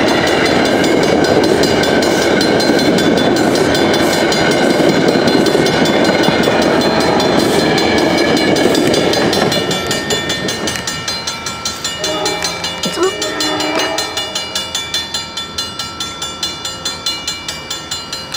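Metro-North commuter train of Shoreliner coaches passing close at speed, a loud rush of wheels and cars that fades after about nine seconds as it recedes. About twelve seconds in, a train horn sounds from farther off for two seconds, over a regular beat of about two or three strokes a second.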